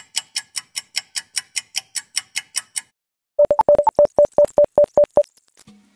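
Edited-in transition sound effect: a run of sharp, evenly spaced clicks about five a second, then after a short pause a quick string of short mid-pitched beeps.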